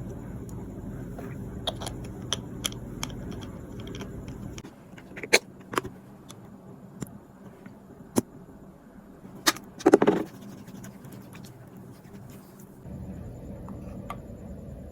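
Scattered small clicks and taps over a steady low hum, with a short, louder clatter about ten seconds in; the hum drops away after about four seconds and comes back near the end.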